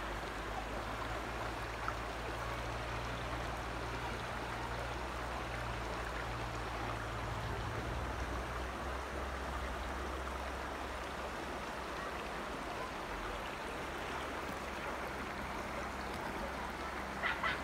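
Shallow mountain stream running over rocks and gravel: a steady rush of water, with a short louder sound near the very end.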